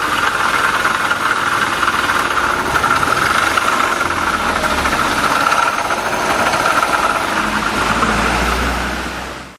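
Honda Little Cub's small single-cylinder four-stroke engine running, with a steady high whine over the engine noise: transmission drag noise from a failing bearing. The sound fades out near the end.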